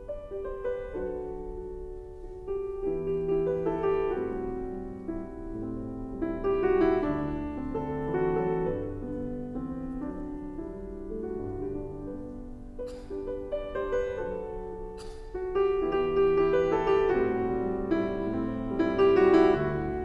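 Background piano music: a flowing melody of separate notes.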